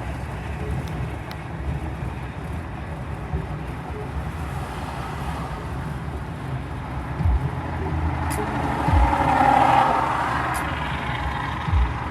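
Steady low rumble of a Ram pickup truck running on the move, with a few short low thumps. A louder, rougher noise swells and fades for a couple of seconds about three-quarters of the way through.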